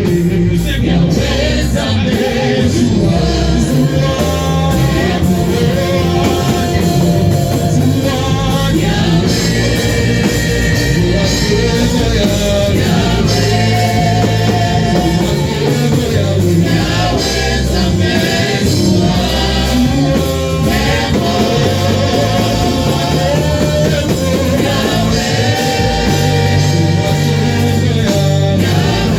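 Gospel-style church worship singing, several voices over instrumental accompaniment with a steady beat, loud and continuous.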